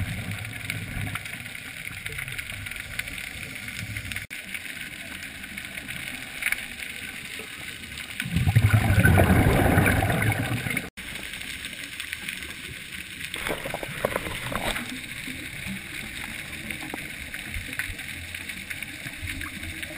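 Underwater rumble of a scuba dive, with a diver exhaling through a regulator: a loud rush of exhaust bubbles starting about eight seconds in and lasting a couple of seconds, and shorter bubbling a few seconds later.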